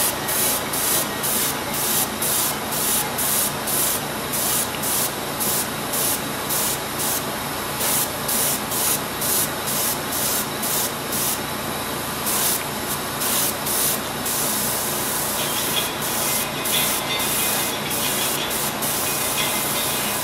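Airbrush spraying paint in short bursts, about two a second, as the trigger is pulsed; about two-thirds of the way through it sprays steadily for a couple of seconds before the short bursts resume.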